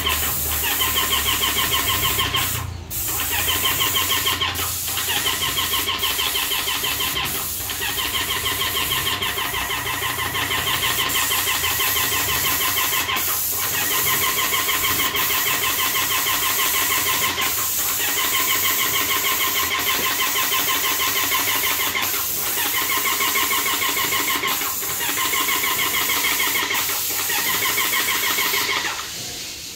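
X9 airless paint sprayer running under load as paint is sprayed from the gun: a rapid, even pump chatter under a steady high hiss of atomised paint. Brief breaks come every few seconds, and it stops near the end.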